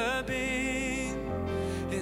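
Contemporary worship song performed live. A male lead vocalist slides up into a long held note over band accompaniment, and the bass moves to a new note about halfway through.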